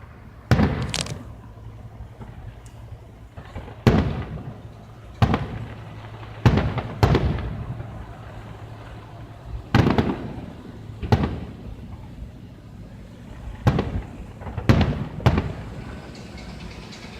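Fireworks shells bursting overhead: about ten sharp booms at uneven intervals, one to three seconds apart, each fading out over a moment. The first is followed by a brief crackle.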